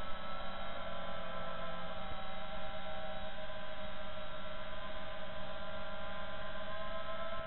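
FPV racing quadcopter's brushless motors and electronics heard through the onboard DVR's microphone: a steady whine of several held tones over a low electrical hum and buzz, drifting only slightly in pitch.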